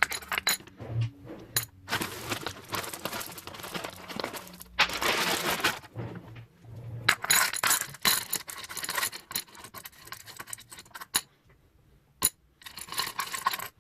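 Small pebbles of turtle-tank gravel clattering and clinking as handfuls are poured and piled into a container, in repeated bursts with a short pause near the end.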